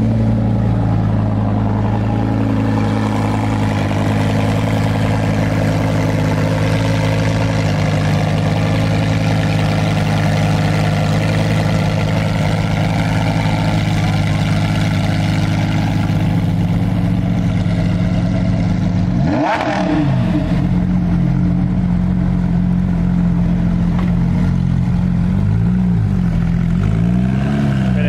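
Lamborghini Huracán's V10 idling steadily, with a brief swoop in engine pitch about two-thirds of the way through. Near the end another engine revs up and down a few times as a Porsche 911 GT3 RS pulls away.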